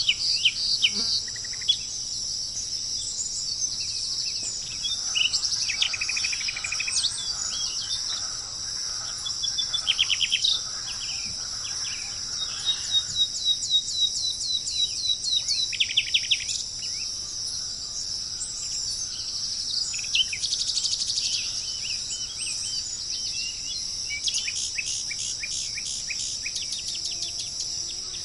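A steady high-pitched insect chorus of crickets or cicadas, with birds calling over it in several bursts of rapid repeated notes and, about halfway through, a fast even series of ticks.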